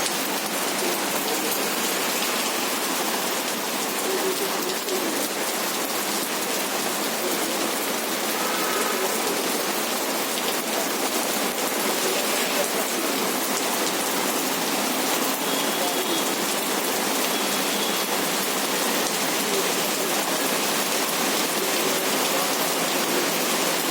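Steady rain falling: an even hiss that does not let up.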